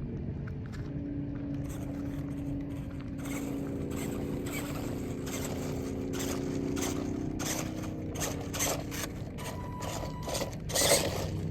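A vehicle's engine running as it drives over rough, rocky ground, with frequent clicks, crunches and scrapes, and a louder knock near the end.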